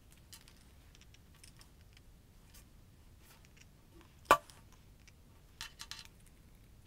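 Hands handling 3D-printed plastic parts and a glue tube on a desk: faint scattered clicks, one sharp click about four seconds in, and a quick run of small taps near the end.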